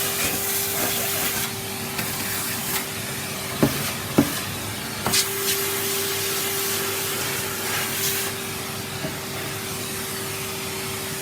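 Vacuum cleaner running steadily, a constant motor hum under the hiss of suction, while vacuuming upholstered furniture. A few sharp knocks come around four and five seconds in, as the nozzle bumps something.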